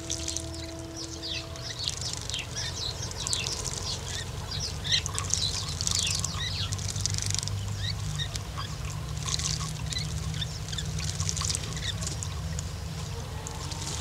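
Spanish sparrows bathing in shallow water: busy splashing and wing-fluttering mixed with many short chirps, over a steady low rumble.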